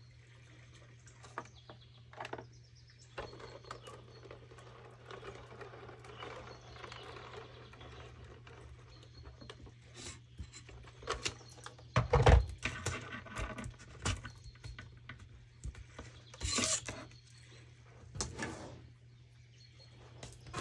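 Craft supplies handled on a tabletop: scattered clicks, taps and rustling, with the loudest knock about twelve seconds in, over a low steady hum.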